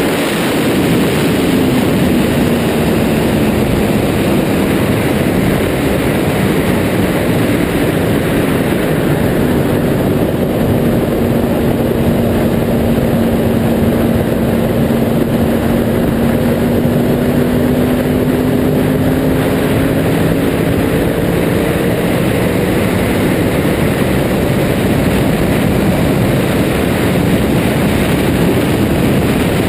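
Yamaha R1 sportbike's inline-four engine running at a steady cruise under heavy wind and road noise from riding at speed. Its pitch dips gently and rises again, with no hard revving.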